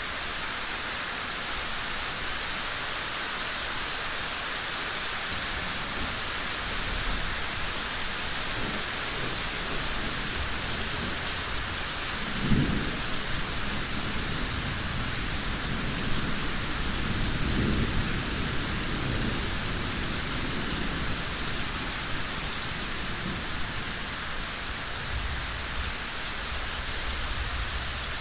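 Steady heavy rain with thunder rumbling low underneath, growing from about six seconds in, with a sharper crack about twelve seconds in and a longer swell of rumbling a few seconds later.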